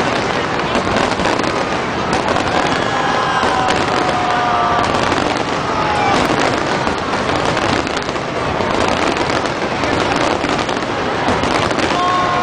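Large aerial fireworks display: a dense, unbroken barrage of shell bursts, rapid crackling pops and bangs at a steady high level, with crowd voices mixed in.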